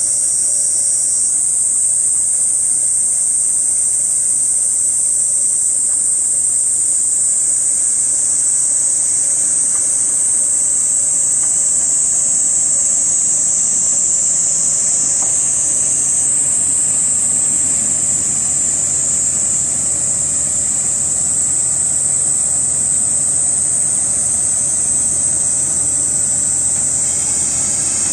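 Cicadas shrilling loudly in a steady, high-pitched drone. From about halfway, a low rumble grows underneath as a Kominato Railway KiHa 200 diesel railcar approaches and draws up close.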